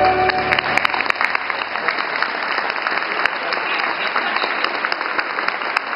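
Audience applauding with many sharp hand claps, just after the skating music stops about half a second in.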